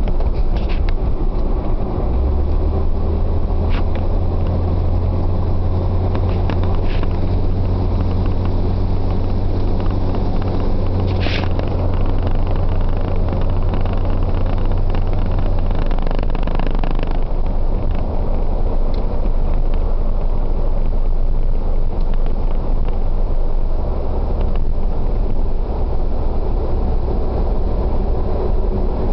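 Dodge Dakota pickup truck on the move: steady engine drone and road rumble. A low hum holds from about two seconds in until about halfway through, and a few short knocks sound in the first half.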